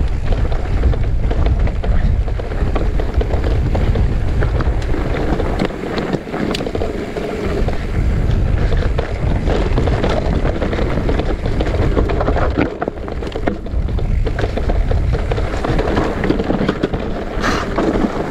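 Wind buffeting a bike-mounted camera's microphone as an electric mountain bike descends a bike-park trail, with a steady rumble of tyres on the ground and scattered knocks and rattles from the bike over bumps.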